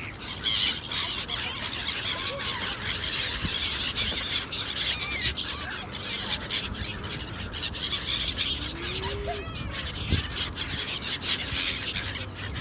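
A flock of gulls calling as they swoop for food, with many short squawks overlapping one another the whole time.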